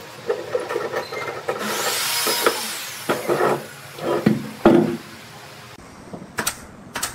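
Wooden clatter and rubbing as a heavy glued-up block of beams is released from steel pipe clamps and slid and lifted off a wooden workbench, with a scraping rush about two seconds in and loud wooden knocks between four and five seconds. Near the end, two sharp shots from a pneumatic nailer.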